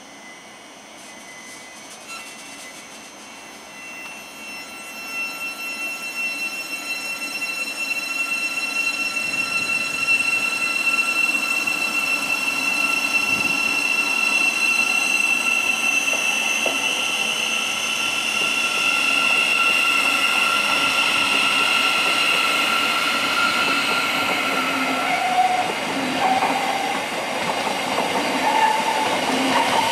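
Thameslink Class 700 (Siemens Desiro City) electric multiple unit pulling away from the platform: a high electric whine of several steady tones over the rumble of wheels on rail, growing louder over the first ten seconds or so as the train gathers speed, then holding.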